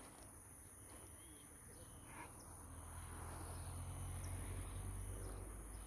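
Steady high-pitched insect chorus, crickets or similar, with a few brief bird chirps over it. A low rumble builds from about halfway through.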